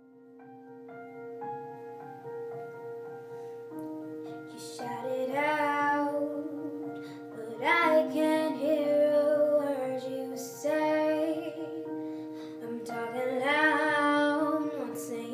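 A young girl singing, accompanied by held chords on a keyboard. The keyboard plays alone at first, and her voice comes in about five seconds in, in several phrases.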